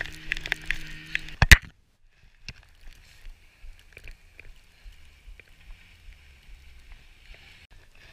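Skis hissing over powder while being towed behind a snowmobile, with the sled's engine humming steadily ahead. A single sharp knock about a second and a half in, after which only a faint hiss and small rustles remain.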